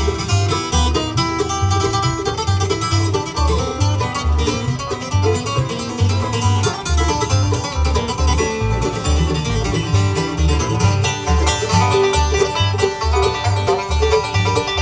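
Bluegrass band playing an instrumental passage live: banjo out front over strummed acoustic guitar, mandolin and a steady upright bass beat of about two notes a second.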